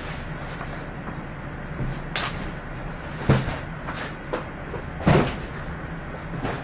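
Cardboard boxes being handled and set down: a few separate dull thumps, the loudest about three and five seconds in, over a steady low hum.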